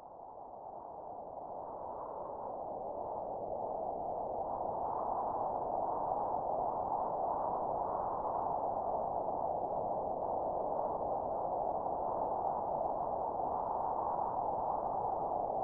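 Wind sound effect that fades in over the first few seconds, then holds steady.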